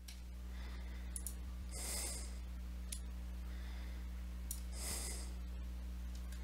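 A person breathing close to the microphone, two breaths about three seconds apart, over a steady low electrical hum, with a few faint clicks.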